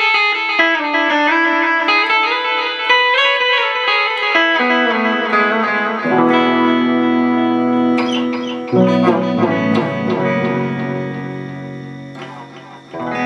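Clean electric guitar: a run of picked single notes, then chords struck and left to ring and fade, with another chord struck near the end.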